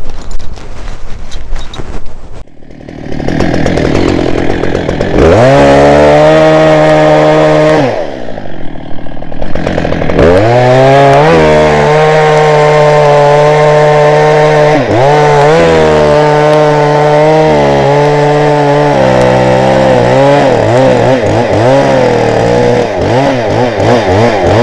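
Chainsaw running at full throttle and cutting into ash wood. Its pitch dips briefly several times as the chain bites and loads, and wavers near the end. Wind noise is on the microphone for the first couple of seconds.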